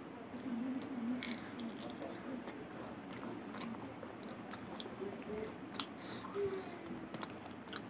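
Close-up chewing of pork curry and rice, eaten by hand, with scattered short clicks of the mouth and food.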